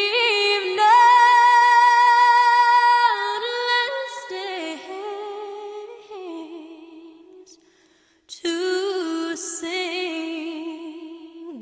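A woman singing a slow song, holding long notes with vibrato, with a short pause about eight seconds in before the next phrase.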